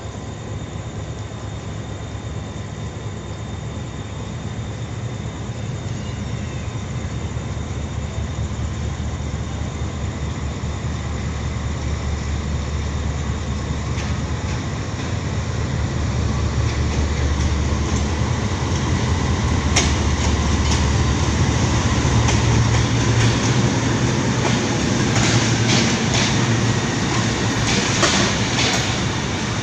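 A GEU-20 diesel-electric locomotive hauling a passenger train into a station: a steady low engine rumble grows louder as it approaches. In the last few seconds the wheels clack over rail joints as the locomotive and first coaches pass close by.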